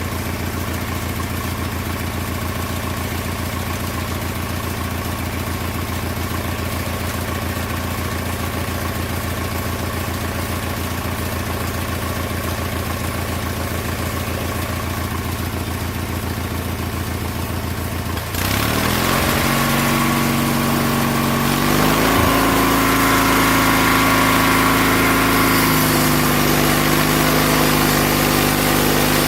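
Old Snapper lawn mower engine powering a homemade sawmill, running steadily at a low idle. About two-thirds of the way in the sound changes abruptly: it gets louder and the engine pitch climbs over a couple of seconds, then holds at the higher speed with more hiss and rattle mixed in.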